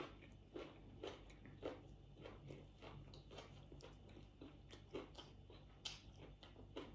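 Close-up chewing of crispy deep-fried mackerel bones: quiet, irregular crunches, about two a second.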